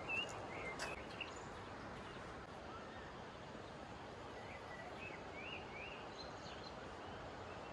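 Steady rush of flowing river water with small birds chirping, a few short calls at the start and another run of chirps about halfway through. A few sharp clicks in the first second are the loudest sounds.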